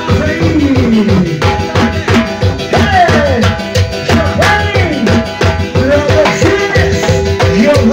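Live band playing fast Ecuadorian zapateo dance music: a Yamaha PSR electronic keyboard plays a melody with sliding, bending notes over a steady, fast drum-kit beat with cymbals.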